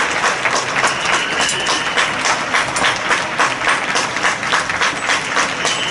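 Many people clapping from apartment balconies across a street: steady massed applause. A thin, steady high tone sounds for about a second near the start.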